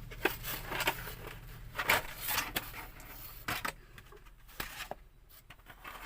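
Handling noise of an unboxing: irregular rustling, scraping and light clicks and knocks from packaging and the newly unpacked plastic device.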